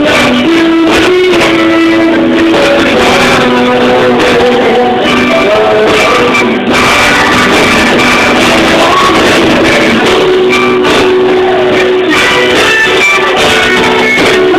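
Live band playing loud and steady on stage, with electric guitar and singing, picked up by a cellphone's microphone.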